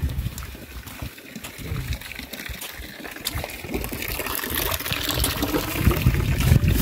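Water trickling and pouring, growing louder after about four seconds.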